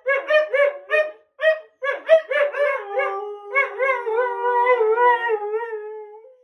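Two Siberian huskies vocalizing: a quick run of short yips and yelps, then, about two and a half seconds in, a long wavering howl at two different pitches together. One voice drops out and the other trails on alone until it stops suddenly.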